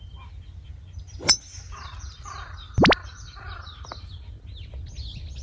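A golf club strikes the ball with one sharp crack about a second in. A short, loud double knock follows a second and a half later. Small birds chirp throughout.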